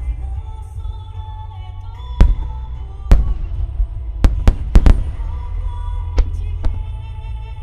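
Large 10-inch (shakudama) aerial firework shells bursting in quick succession: about eight sharp booms, several close together in the middle, over a continuous low rumble. Background music plays underneath.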